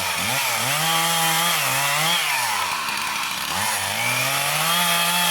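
Two-stroke chainsaw cutting up a tree limb. It is revved up twice, each time held high for a second or two, with the pitch sagging back down between.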